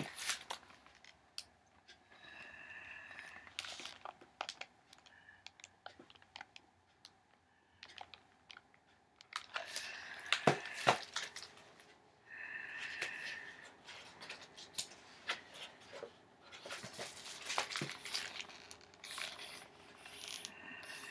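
Pages of a large picture book rustling and flapping as they are turned and the book is handled, with scattered clicks and crinkles, busiest about halfway through. Two brief squeaky tones come early on and again about two thirds of the way in.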